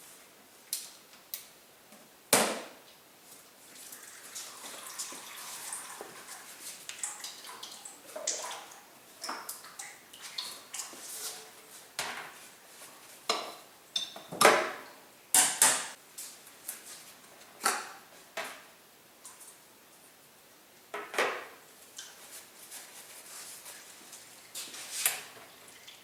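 Scattered clinks and knocks of metal tools and engine parts being handled while the oil filter housing is opened with an oil filter wrench, a few strikes ringing briefly.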